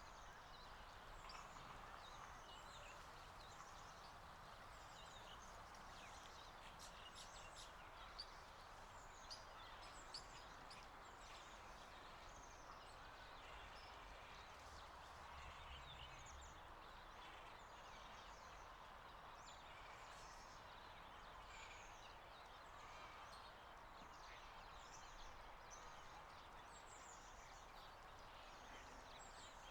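Faint birdsong: many short, high chirps scattered throughout, over a steady soft hiss.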